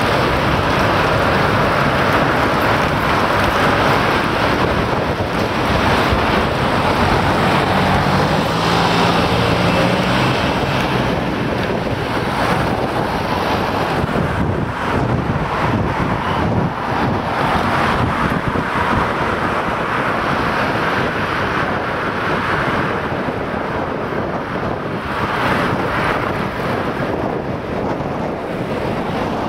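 Wind rushing over the microphone of a camera carried on a moving bicycle, a steady loud roar with street traffic mixed in.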